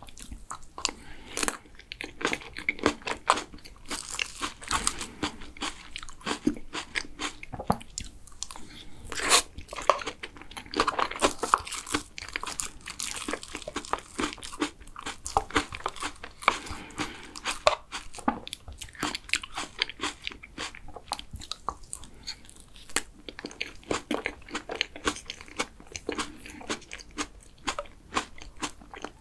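Close-miked eating sounds: mouthfuls of soft layered cream cake chewed with wet mouth clicks and smacks, mixed with the taps and scrapes of a spoon and fingers on a clear plastic cake box.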